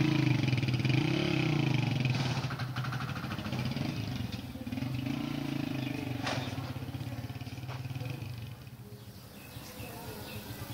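Small Honda motorcycle's engine running as it rides off, its pitch rising and falling with the throttle and the sound fading as it gets farther away.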